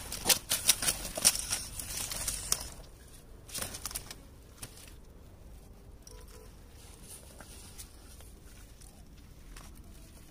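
Quick sharp clicks, scuffs and crackling of a freshly landed fish being handled and carried over rocks and dry twigs, dense for the first two and a half seconds with a short cluster near four seconds. After that only a faint outdoor background.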